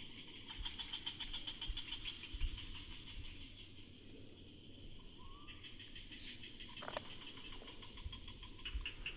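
Insects chirring in dense greenery: a steady high whine throughout, with a fast pulsing trill that starts about half a second in, drops out in the middle, and comes back after about five and a half seconds.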